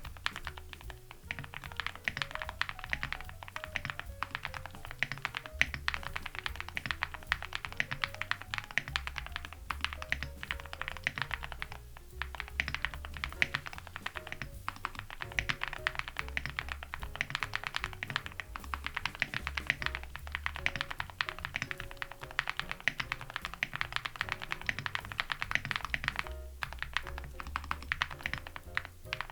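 Fast continuous typing on a mechanical keyboard with Gateron Moon Landing switches, dye-sub PBT keycaps and an aluminium plate with full foam, with a few brief pauses. Jazz-style background music plays under it.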